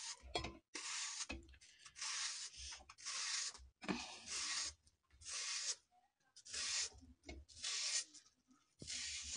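A knife slicing through a peeled raw apple, about eight rasping strokes at roughly one a second, with short pauses between them.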